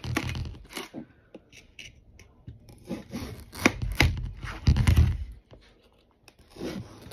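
Kitchen knife cutting into a whole watermelon, in several separate strokes through the rind, with a sharp click about three and a half seconds in.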